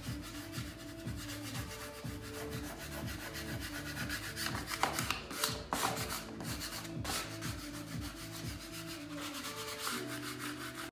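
Hand rubbing and burnishing a paper sheet laid over a vinyl sign, in repeated scratchy strokes that are strongest near the middle. Steady tones of background music sound underneath.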